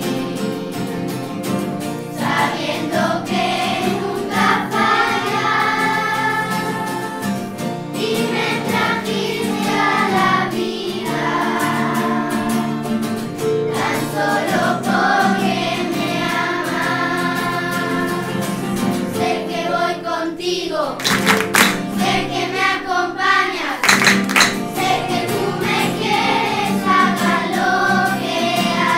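A song with a group of voices singing a melody over instrumental accompaniment, with a few sharp percussive hits about three-quarters of the way through.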